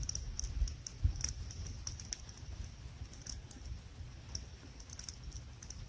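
Campfire crackling, with irregular sharp pops a few times a second over a low rumble.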